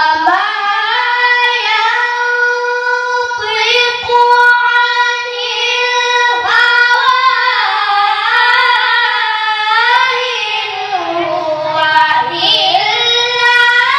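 A boy reciting the Quran in the melodic tilawah style: one high voice holding long, ornamented phrases that waver and slide up and down in pitch.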